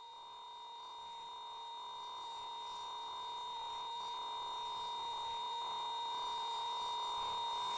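Tinnitus-masking tones: several steady electronic tones sounding together, a mid tone with a lower one and a very high whistle-like one, slowly fading in and growing louder throughout. A faint hiss builds beneath them near the end.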